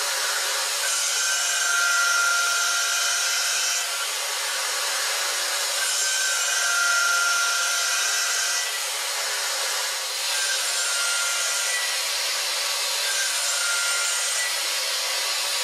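End mill cutting titanium on a CNC milling machine in trochoidal passes, cooled through the tool with liquid nitrogen and MQL. A steady hissing cutting noise runs throughout, and a high whine rises over it for a few seconds at a time, several times, as the cutter engages.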